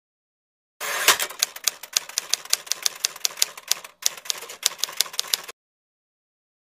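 Typewriter typing sound effect: a rapid run of sharp key clacks, several a second, opening with a louder clack. It breaks off briefly near the middle, then stops for good about five and a half seconds in.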